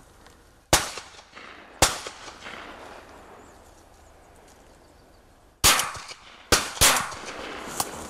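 Shotgun shots: two about a second apart, then after a pause of several seconds three more in quick succession, and a fainter one near the end.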